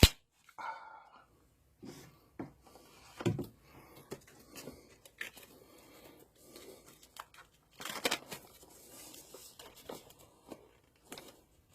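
Plastic wrapping being torn and pulled off a new oscilloscope: irregular crinkling and rustling with sharp clicks and snaps, the loudest right at the start.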